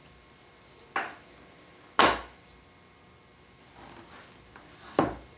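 Three sharp wooden knocks as drawer-front boards are shifted and set down on the workbench, the second one loudest, with faint scraping and handling between them.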